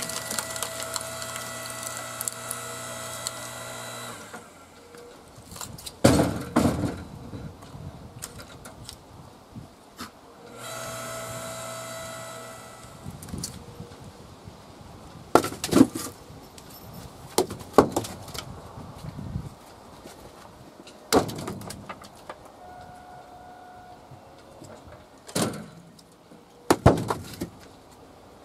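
Log splitter running with a steady whine that stops about four seconds in and comes back briefly around eleven seconds, between sharp wooden knocks as firewood rounds and split pieces are handled and dropped.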